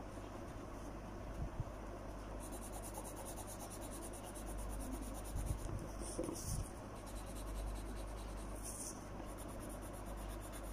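Pencil scratching on paper in short drawing strokes, with a few light taps against the paper and table, over a low steady hum.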